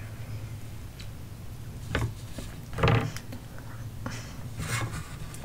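Chopsticks clicking and scraping against a plate while picking rice cakes out of thick sauce: a few sharp clicks and one louder knock about three seconds in.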